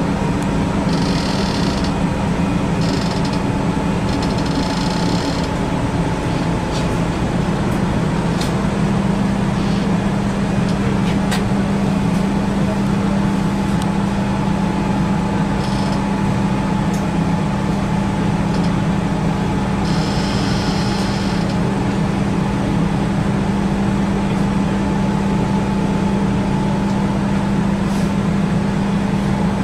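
Biomass gasification plant machinery running with a steady loud hum: a low drone with a thin steady tone above it, and short patches of high hiss near the start and about two-thirds of the way through.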